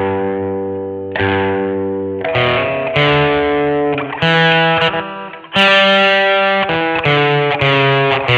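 1982 Vantage VE-550 electric guitar playing distorted chords, struck one after another and some left to ring. A louder chord comes in after a brief dip about five and a half seconds in.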